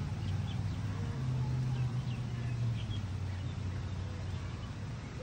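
Outdoor ambience: a steady low hum that fades after about four seconds, with scattered short bird chirps over it.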